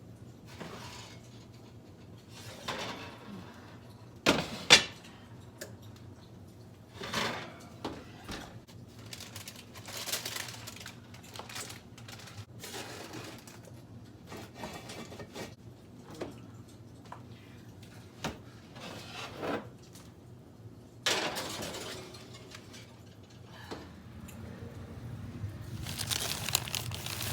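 Intermittent household handling noises: knocks and light clatter of objects being set down and moved, with one sharp knock about five seconds in and a rustling, noisy stretch near the end.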